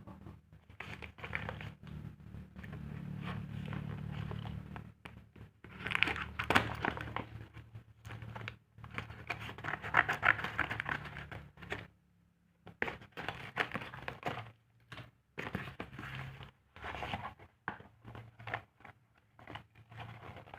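Packaging being handled and opened by hand: repeated bursts of crinkling and tearing with short pauses between them, over a steady low hum.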